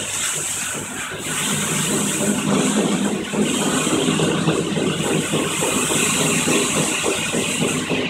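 Petit Accutrac 360-i touchless car wash running: high-pressure water spray hissing onto a car over the steady hum of the wash's pumps and gantry drive. It gets louder about a second in and again a little after three seconds.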